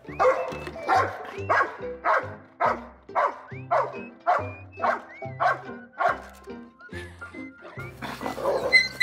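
A young puppy barking repeatedly, about two barks a second, with a denser flurry near the end, over background music.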